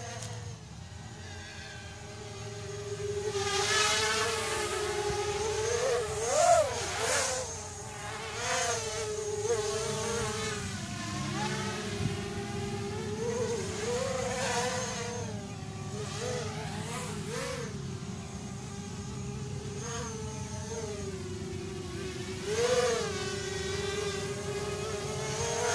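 Quadcopter drone's electric motors and propellers buzzing in flight, the pitch wavering up and down with each throttle change. It grows louder when the drone comes close, with the biggest swells about a quarter of the way in and again near the end.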